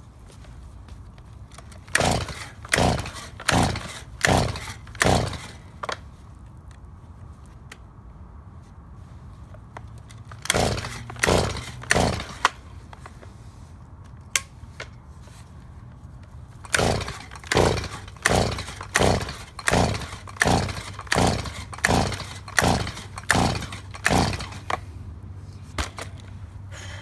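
Recoil starter of an old John Deere gas blower being yanked repeatedly, the engine cranking over without catching: three quick runs of pulls, about six, then five, then about a dozen. The blower is hard to start.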